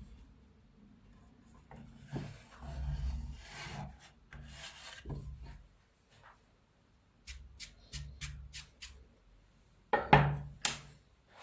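Several rubbing, rasp-like scraping strokes, then a quick run of about six sharp clicks, and a few louder knocks and scrapes near the end.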